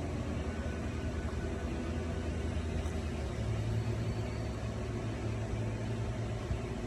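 A steady low hum or rumble, its main pitch shifting slightly upward about three seconds in.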